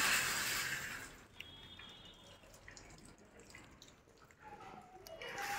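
Wind gusting through trees, a rushing hiss that dies down about a second in and rises again near the end.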